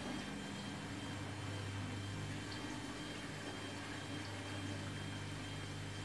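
Front-loading washing machine running in its final spin stage: a steady low motor hum with a faint high whine over it.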